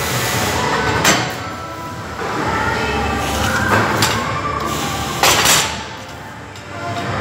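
Metal workshop handling sounds: steel parts and hand tools clanking and scraping on a steel frame, with sharp knocks about a second in and again around five seconds in.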